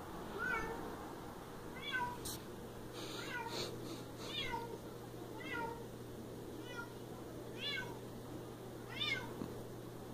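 Siamese cat meowing repeatedly: about eight short meows, a second or so apart.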